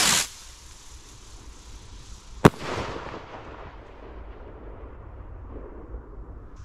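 A 14 g Hellfires firework rocket launching with a whoosh that ends just after the start, then about two and a half seconds later a single sharp bang as it bursts into red and green strobe stars, followed by a hiss that fades out. Another rocket's whoosh begins right at the end.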